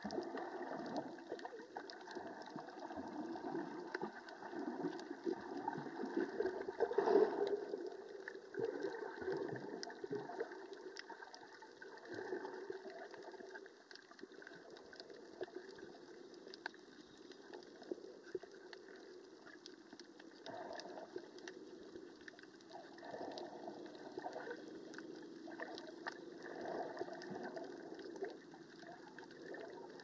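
Muffled underwater water noise that swells and fades, loudest about seven seconds in, with faint rapid clicking throughout.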